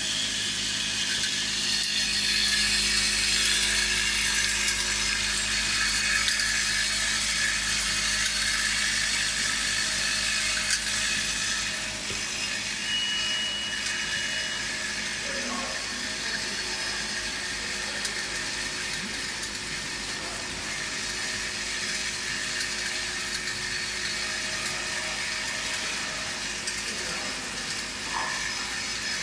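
Stick lip balm filling and capping machine running: the chain conveyor and cap feeder give a steady mechanical hum and hiss. A brief high tone sounds about 13 seconds in.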